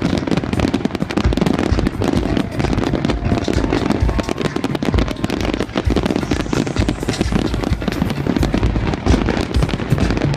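A large fireworks display with many aerial shells bursting in quick succession, a continuous dense run of bangs and crackles with no pause.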